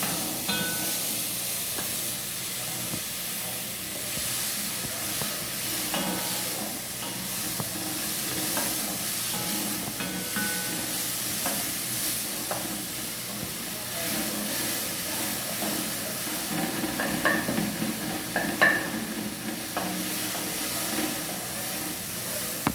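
Heavy rain falling: a steady hiss with scattered drips and taps, and a few louder taps about three-quarters of the way through.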